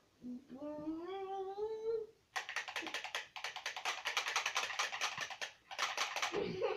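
A drawn-out moaning voice rising in pitch for about two seconds, then a rapid rattle of clicks for about four seconds with one short break.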